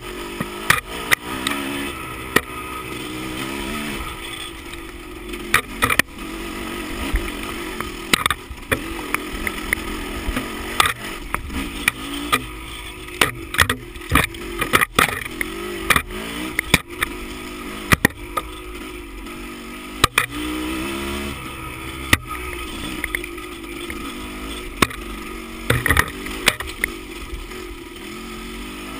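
Dirt bike engine on a trail ride, its revs rising and falling again and again, with frequent sharp knocks and clacks.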